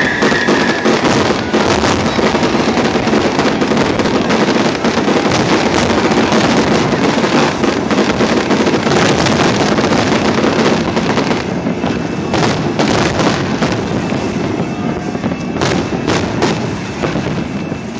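Fireworks display: a dense, continuous barrage of bangs and crackle from aerial shells and ground fountains. It thins to separate loud bangs in the last few seconds.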